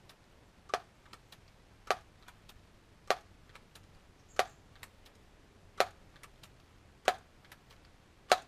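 Daisy PowerLine 901 multi-pump pneumatic air rifle being pumped to charge it for a shot: seven pump strokes about one and a quarter seconds apart, each closing with a sharp clack, with fainter clicks between as the forearm swings open.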